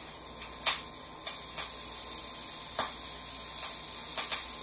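A sandwich frying in butter in a nonstick pan, giving a quiet steady sizzle, with a few light clicks and knocks from kitchen handling. The sharpest click comes about a second in.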